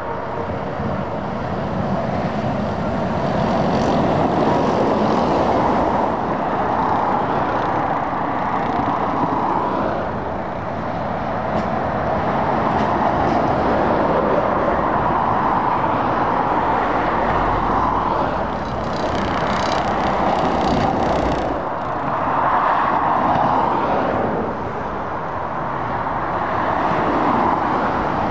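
Steady traffic on a dual carriageway: lorries and cars passing one after another, tyre and engine noise swelling and fading as each goes by.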